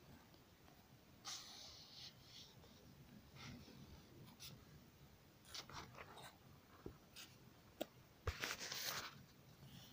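Faint, intermittent scratching of a red pen drawing strokes on paper, with a few light knocks, and a louder scratchy stretch near the end.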